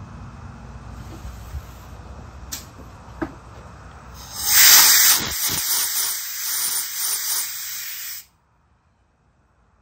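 Compressed air blasting from a hand blow gun onto the end of an outboard crankshaft, a loud rushing hiss that starts about four seconds in, swells and eases a few times, and cuts off suddenly about four seconds later.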